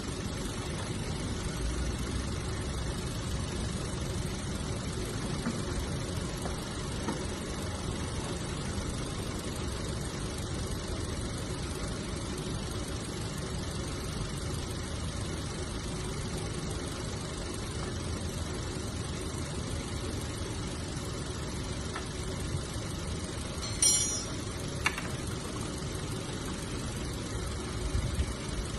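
Car engine idling steadily, with a short click about two-thirds of the way through and a fainter tick just after.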